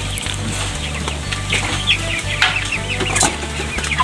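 Broiler chickens clucking, with many short calls scattered throughout, and wing flapping from a bird being handled, over a steady low rumble.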